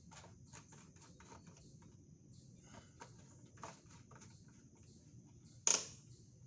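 Faint scattered clicks and scratchy ticks, with one sharp, louder knock about five and a half seconds in, over a faint steady hiss.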